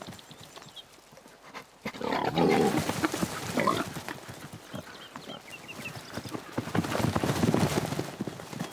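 Wild boars grunting in two rough bouts, the first about two seconds in and the second near the end, as bristling boars threaten sows and piglets. Faint bird chirps are heard between the bouts.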